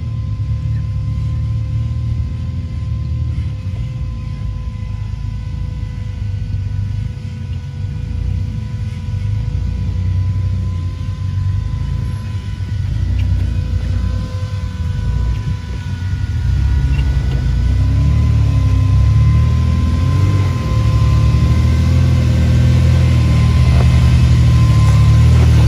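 Engines of off-road rock-crawling rigs rumbling at low revs as they crawl over boulders, with the revs rising and falling now and then. The sound grows louder over the last third as the lead rig comes closer.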